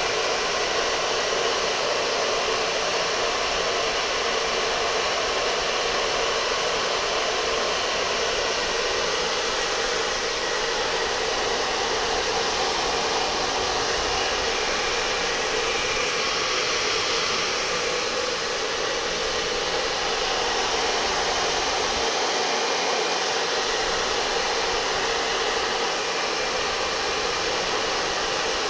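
Steady rush of air from an electric blower aimed at a loose long-sleeved t-shirt, with the fabric fluttering in the airflow. The sound holds even and unbroken throughout.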